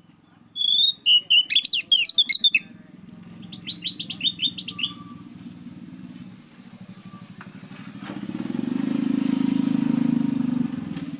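Oriental magpie-robin (kacer) singing: a loud burst of quick, varied whistled notes, then a short run of rapid repeated chirps. A low pulsing engine hum runs underneath and swells louder in the second half, as a motor vehicle passes.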